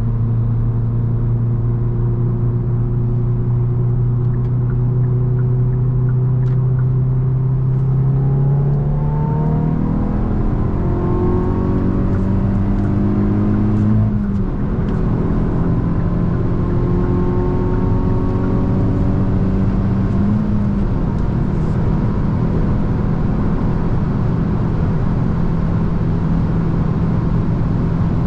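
Hyundai i20 N's 1.6-litre turbocharged four-cylinder engine at motorway speed over steady road noise. The engine cruises evenly, then pulls with rising pitch for several seconds. About halfway through, an upshift brings the pitch suddenly down, and the car settles back into a steady cruise with a brief small rise and fall later on.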